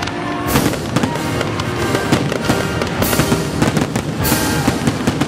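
Aerial fireworks going off in quick succession, with sharp bangs and crackle, over orchestral music.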